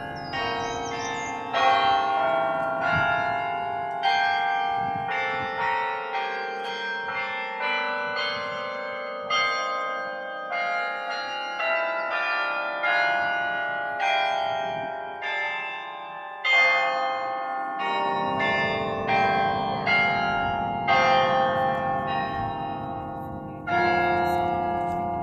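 The Berlin Carillon, a 68-bell carillon played by hand from its keyboard, with bells struck in a melody of single notes and chords. Each strike rings on and overlaps the next, and a louder chord comes every few seconds.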